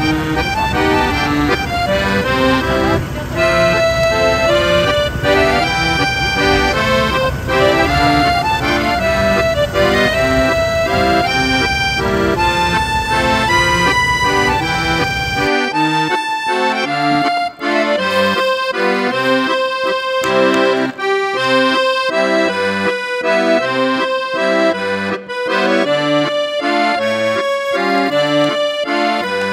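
Instrumental background music: a continuous melody of short held notes. A low, steady rumble runs underneath for roughly the first half and drops away abruptly about halfway through.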